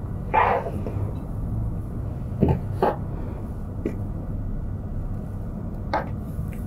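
A few short rustles and soft knocks from a tweed fabric strip being handled while threads are pulled from its edge to fray a fringe, over a steady low rumble.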